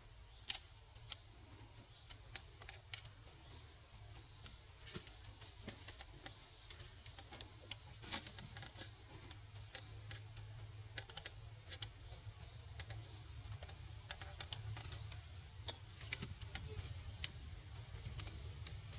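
Newborn macaques suckling at their mother's nipples: faint, irregular wet clicks and smacks, a few a second, over a low steady rumble.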